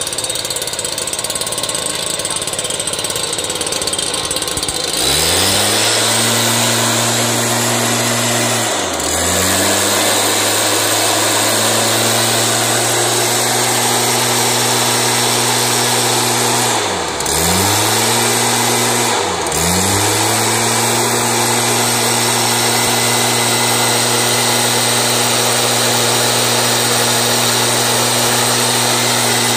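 Stihl SR 420 backpack mist blower's two-stroke engine idling, then opened up about five seconds in to a steady high-speed run with the rush of the blower's air. Three times the throttle is briefly let off, and the pitch dips and climbs straight back.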